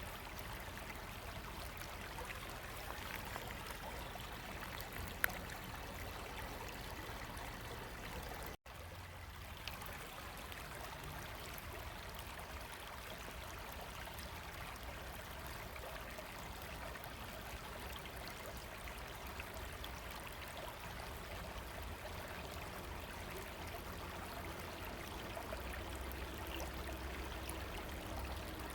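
River water running steadily. A single sharp click comes about five seconds in, and the sound cuts out for an instant about eight and a half seconds in.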